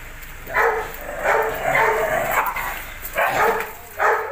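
Dogs play-fighting, with about five short, harsh barks in quick, uneven succession.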